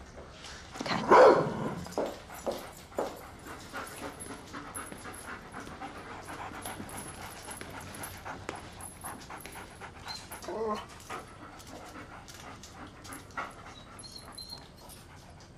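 German Shepherd detection dog panting and sniffing in quick runs of breaths, with a louder single sound about a second in.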